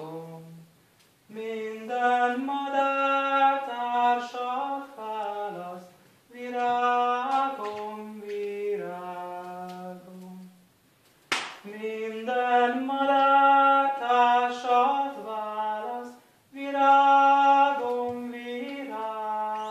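A young man's voice singing an unaccompanied Latvian song in slow phrases of about four seconds each, with short breaths between them. A single sharp click cuts in about halfway through.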